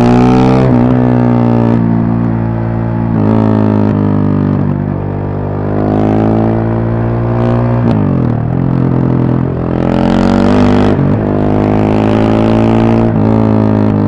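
KTM 690 Supermoto's single-cylinder engine accelerating up through the gears. The revs climb, then drop sharply at each upshift, several times over.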